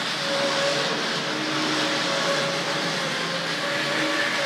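Vintage 00-scale three-car model train running on three-rail track, its ribbed wheels making a loud, steady rolling rumble on the rails, with a wavering motor hum over it.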